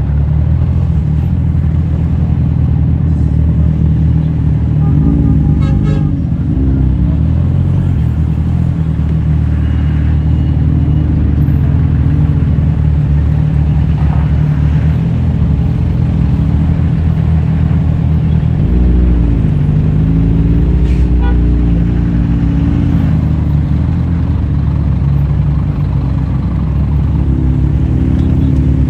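Kawasaki Z1000 inline-four engine running while riding, its pitch rising and falling with throttle and gear changes several times. A short horn toot sounds about five seconds in.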